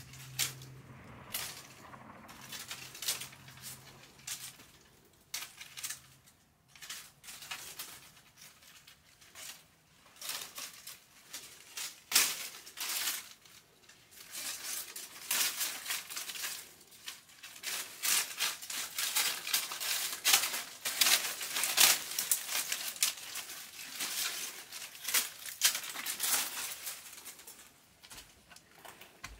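Dry branches snapping and dry leaves crackling and rustling as twigs are broken off a dead shrub by hand: a run of crisp cracks, sparse at first and growing busier and louder about halfway through.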